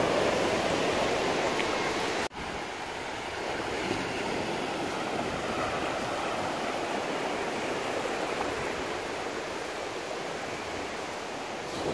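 Ocean surf breaking and washing up a flat sand beach: a steady rush of waves and foam. The level drops suddenly about two seconds in, and the surf goes on a little quieter after that.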